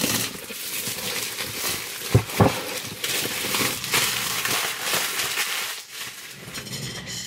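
Packaging rustling and crinkling as a subscription box is unpacked by hand, with two sharp knocks about two seconds in.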